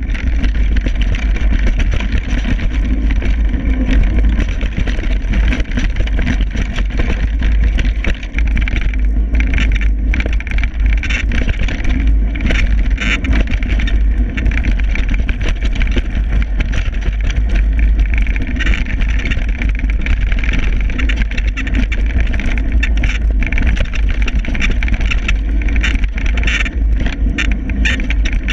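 Wind buffeting the camera microphone of a downhill mountain bike at speed, a steady low rumble throughout, with the clatter and rattle of the bike bouncing over a rough dirt trail coming in bursts.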